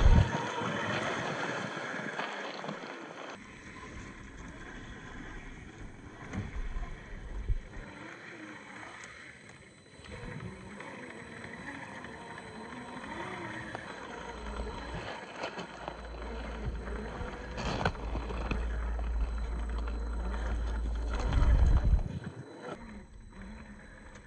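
Electric motor and gears of a Traxxas TRX-4 RC crawler with a brushed 550 motor, driving over rough ground with the pitch rising and falling as the throttle changes. A strong low rumble comes in from about 15 to 22 seconds in.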